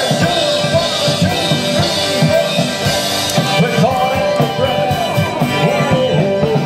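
Rock and roll song with a drum kit and a singing voice.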